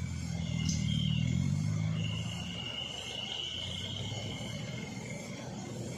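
Diesel engine of a heavily loaded light truck running at low speed as it crawls over a rough dirt road, its note strongest for the first couple of seconds and then easing. Insects keep up a steady high buzz.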